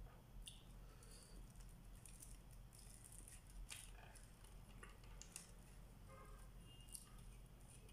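Near silence with faint scattered clicks and rustles of eating by hand: fingers dipping food into a plastic cup of sauce over a foil tray.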